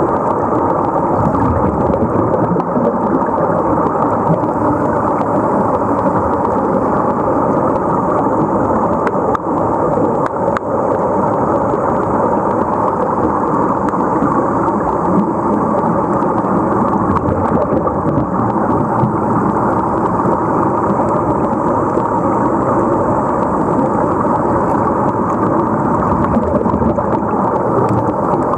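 Steady, dense underwater rushing and bubbling of air streaming out of sea-walk diving helmets, heard with the microphone under water.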